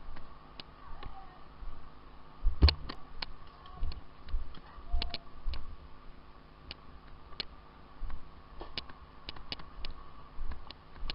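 Irregular sharp clicks and knocks, some with a dull thump under them, the loudest about two and a half seconds in.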